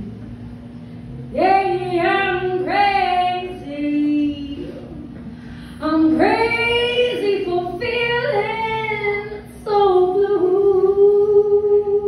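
A woman singing a cappella into a microphone through a PA speaker, with no instruments. She sings three phrases starting about a second and a half in, and the last one ends on a long held note, over a steady low hum.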